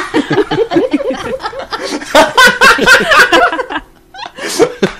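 Hearty human laughter in rapid repeated bursts, breaking off briefly near the end and starting up again.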